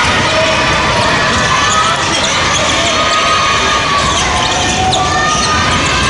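A basketball being dribbled on a hardwood gym floor, with sneaker squeaks and steady voices shouting and cheering echoing in the hall.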